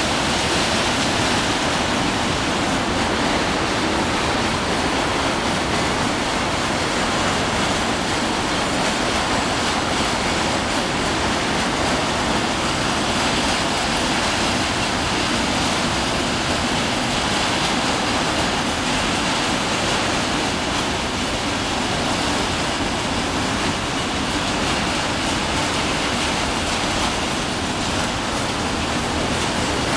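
Freight train of tank wagons rolling past: a steady rumble and hiss of steel wheels on the rails.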